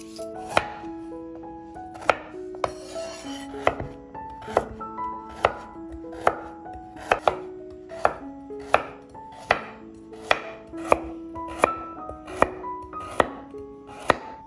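Kitchen knife chopping a raw carrot into rounds on a wooden cutting board: sharp, regular strikes a little more than once a second, over soft background music.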